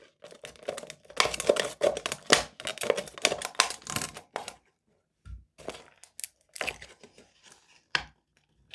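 Stanley knife blade sawing through a thin plastic drinks bottle: a dense run of scratchy crackles and clicks for about four and a half seconds, then scattered clicks and a couple of light knocks as the cut goes on round the bottle.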